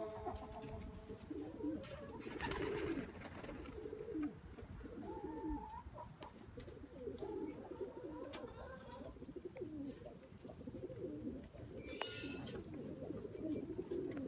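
Chickens murmuring with soft, low clucks over and over, faint, with a couple of brief scratchy noises.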